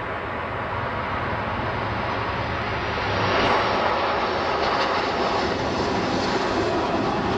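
Boeing 747-400 passing low on final approach with its gear down, the steady jet noise of its four engines at approach power. The sound grows louder about three seconds in.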